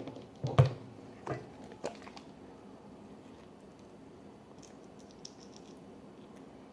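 Contact lens solution bottle and bowl being handled while slime is made: a few soft knocks in the first two seconds, then a short run of faint small clicks about halfway through.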